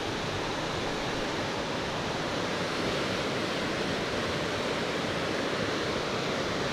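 Steady rush of falling water from a waterfall.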